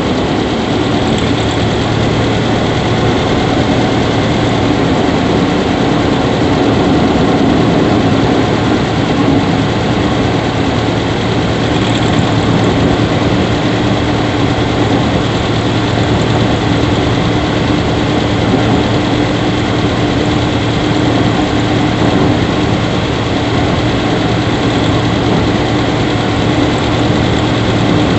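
Subaru Levorg 1.6GT-S's 1.6-litre turbocharged flat-four idling steadily, with an even hum. The owner is checking this engine for a squeaky 'kyuri' noise that grows louder as it warms.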